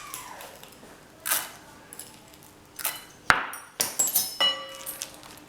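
A spoon clinking and tapping against a dish while batter is mixed: several sharp clinks, some leaving a short ringing tone, the loudest about three seconds in and a quick run of ringing clinks just after.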